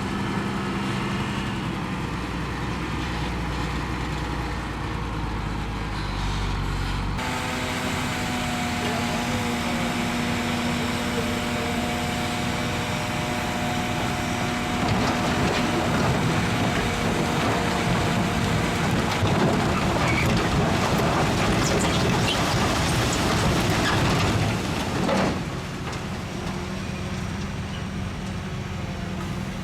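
Heavy diesel earthmoving machinery running under load, the kind of engine sound a bulldozer makes while pushing rock. The sound changes abruptly about a quarter of the way in to a louder run with steady tones, then drops back near the end.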